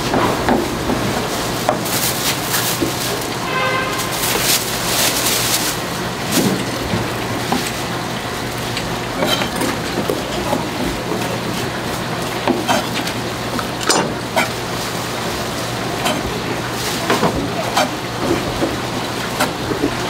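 Knives chopping sundae (Korean blood sausage) on cutting boards: repeated, irregular knocks of the blades striking the boards, over a busy background din.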